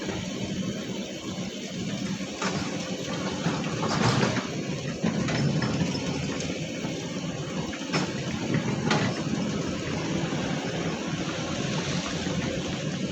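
Heavy diesel earthmoving machinery running steadily with a low drone, with a few sharp clanks in between.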